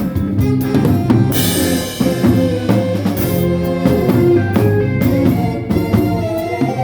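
Live band playing in rehearsal, the drum kit prominent with bass drum and snare, and a cymbal crash ringing out about a second and a half in.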